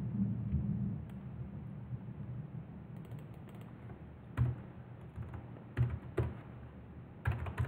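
Computer keyboard keystrokes as a command is typed: a few separate key presses in the middle, then a quicker run near the end, over a low steady hum.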